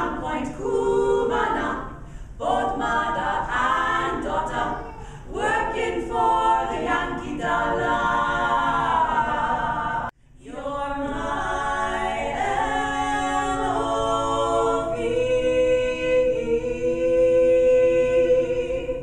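Female a cappella trio singing together without instruments. There is a short break about halfway, then the voices hold a long final chord that ends just before the close.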